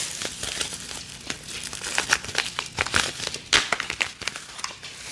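Crinkly plastic packaging rustling and crackling as it is handled, in an irregular run of small crackles and clicks.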